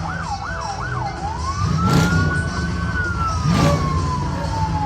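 Emergency vehicle siren on its rapid up-and-down cycle, which switches about a second in to a long wail that rises, holds and slowly falls, over a steady low vehicle rumble. Two short sharp sounds come about two seconds in and again a second and a half later.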